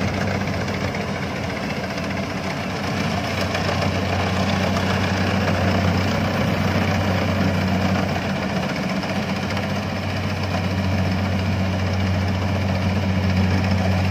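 Kubota DC70 rice combine harvester's diesel engine running steadily while the machine cuts and threshes standing rice: a loud, even low hum under a haze of machinery noise.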